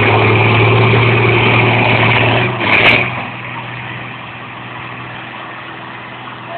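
Tractor diesel engines running hard at high revs under load in a tractor tug-of-war. About three seconds in there is a brief sharp sound, and then the engines throttle back and die away.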